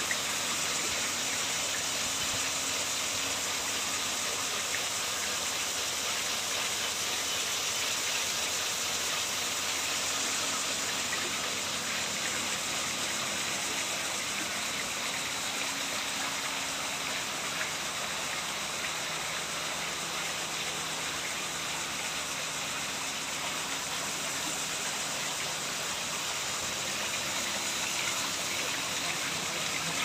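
Two-tier hand-carved stone fountain running: a water jet from the top spout splashes down over the scalloped basins into the pond, a steady even splashing.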